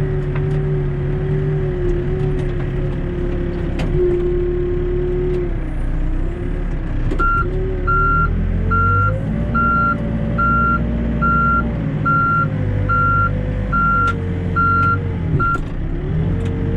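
Four-wheel-drive backhoe's diesel engine running under load, its pitch rising and falling as the machine moves. About seven seconds in its reverse alarm starts beeping, about one beep a second, as the backhoe backs up, then stops near the end.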